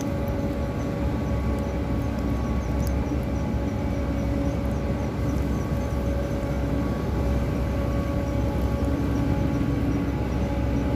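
A motor running steadily at a constant pitch, a low hum over a rumbling noise.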